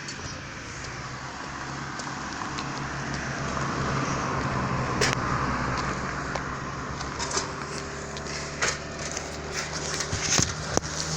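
Airplane passing: a steady engine hum under a broad rushing noise that swells to a peak about halfway through and then fades, with a few clicks and knocks near the end.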